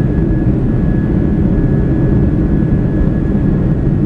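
Airbus A330 jet engines heard from inside the passenger cabin during the climb after takeoff: a steady, deep roar with a faint thin whine held on one pitch above it.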